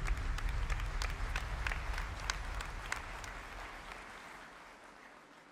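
Large audience applauding, the clapping thinning and dying away over a few seconds. The low bass of music fades out under it at the start.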